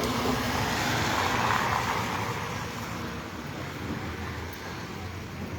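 A road vehicle passing, its rushing noise swelling over the first two seconds and then fading away.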